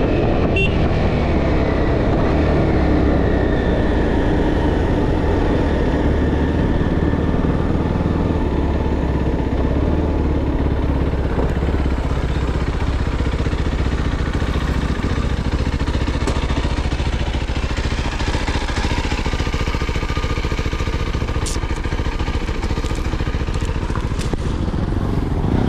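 2016 KTM Duke 390's single-cylinder engine running continuously, its revs falling gradually over the first ten seconds or so, then holding fairly steady at lower revs.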